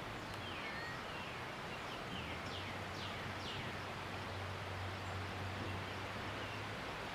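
Steady outdoor breeze noise ahead of a thunderstorm, with birds giving a series of short, high, falling chirps, mostly in the first half. A low steady hum runs underneath from about two seconds in.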